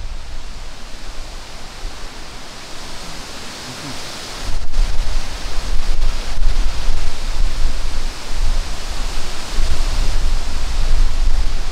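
Wind buffeting the microphone in uneven gusts over a steady outdoor rushing hiss; the gusts grow stronger about four seconds in.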